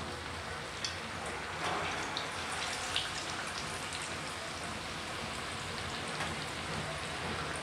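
Masala-coated king fish (surmai) steaks deep-frying in hot oil: a steady sizzle with a few sharp pops.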